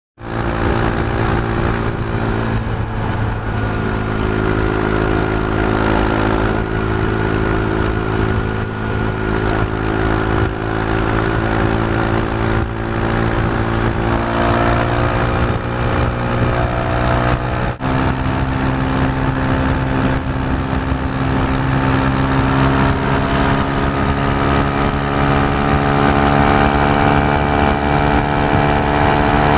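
KTM 390 Duke motorcycle's single-cylinder engine running steadily at highway speed, with a brief dip about two-thirds of the way through, after which the engine note climbs slowly.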